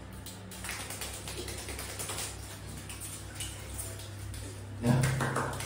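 Rustling of a towel and handling as a wet golden retriever puppy is caught up, with light irregular clicks like claws on a wooden floor; a man's voice comes in near the end.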